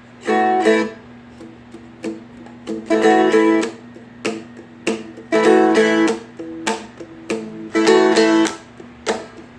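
Seagull Merlin, a four-string dulcimer-style instrument, playing a picked riff in A. Short phrases of plucked notes repeat about every two and a half seconds, and the open drone strings ring steadily beneath them.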